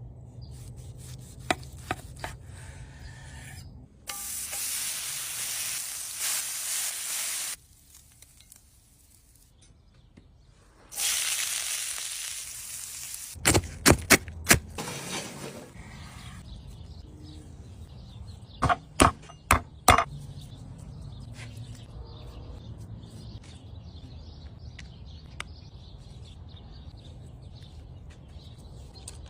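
Flank steak sizzling in a hot pan in two loud stretches that start and stop abruptly. There are two quick runs of three or four sharp knocks partway through.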